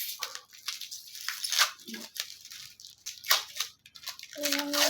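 Sticky packing tape and parcel wrapping being pulled and torn off by hand: a run of short, irregular crackling rips.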